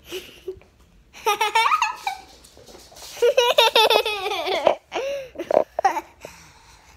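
A five-year-old girl giggling in high-pitched, quickly wavering laughs. There is a short bout about a second in and a longer one from about three seconds in, then a few brief laughs.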